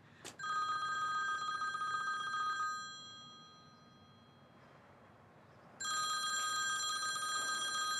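Mobile phone ringtone ringing twice, each ring an electronic telephone-bell trill about two and a half seconds long, with a pause of about three seconds between them. The call goes unanswered for now.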